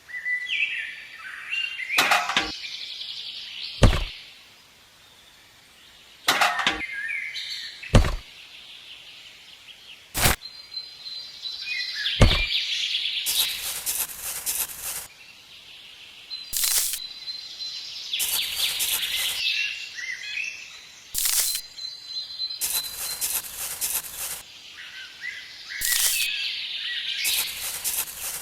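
Birds chirping, with a series of sharp knocks and taps: single knocks every second or two at first, then quick clusters of several knocks in a row from about halfway through.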